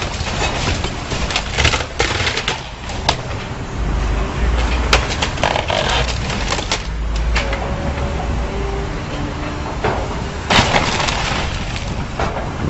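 House being torn down by demolition machinery: repeated sharp cracks and snaps of breaking building material, with a heavier low rumble of crashing debris and machinery in the middle.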